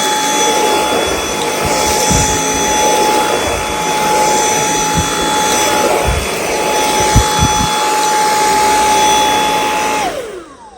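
Dyson V8 Extra cordless vacuum cleaner running, with a steady high whine over rushing air and a few knocks. Near the end it is switched off and the motor winds down with a falling whine.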